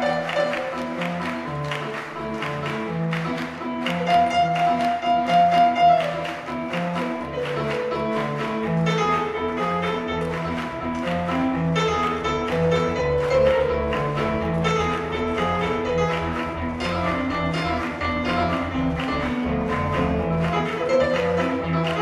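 A live jazz-funk band playing an instrumental passage. A repeating bass line runs under keyboards, with drums ticking steadily on top.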